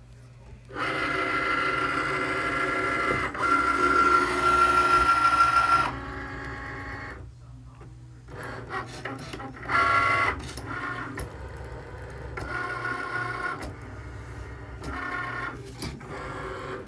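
Cricut Maker cutting machine running as it cuts squares from vinyl: a steady motor whine for about five seconds, then, after a short lull, a run of short whirs as the carriage and rollers move back and forth.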